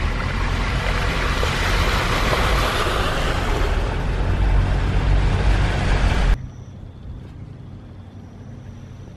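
Car driving through a flooded street, heard from inside the cabin: a low engine and road rumble under a rushing hiss of water. It cuts off abruptly about six seconds in, leaving a quieter hiss with faint steady high tones.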